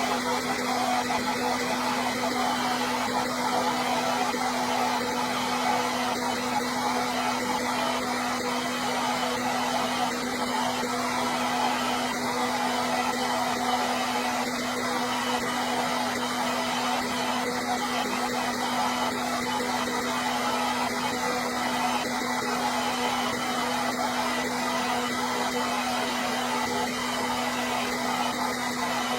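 Hair dryer running steadily: a continuous rush of air over a steady motor hum.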